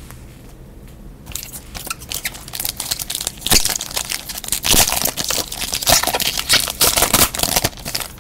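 Foil wrapper of a football trading-card pack being torn open and crinkled by hand. The dense crinkling, full of sharp clicks, starts about a second in and stops just before the end.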